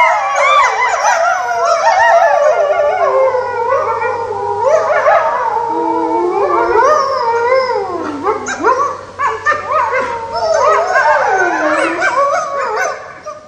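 A pack of grey wolves howling in chorus, several voices overlapping and gliding up and down in pitch. In the second half the howls break into shorter, wavering notes and yips.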